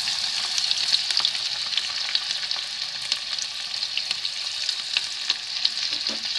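Freshly added chopped onions sizzling in hot mustard oil in a kadhai: a steady frying hiss with many small crackles and pops.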